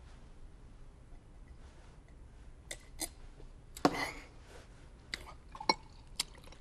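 A handful of short, light clicks and knocks in a quiet pause. The strongest comes about four seconds in, with a brief rustle trailing after it.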